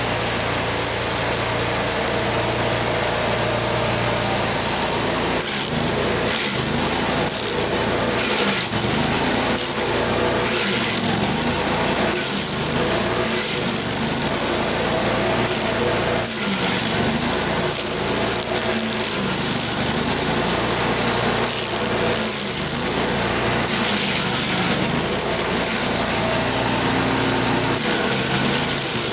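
LASKI F500H stump grinder with its engine running steadily. From about five seconds in, its cutter wheel chews into an ash stump in uneven bursts of grinding, and the engine note dips and recovers as it takes the load.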